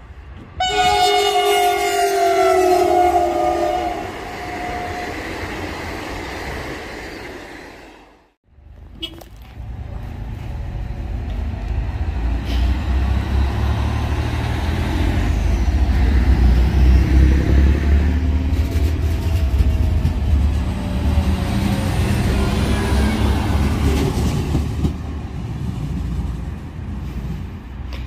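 Train horn sounding one long blast of two notes together, lasting about four seconds and dropping slightly in pitch at the end. After an abrupt break, a DSB passenger train rolls past close by with a steady low rumble that builds and then fades.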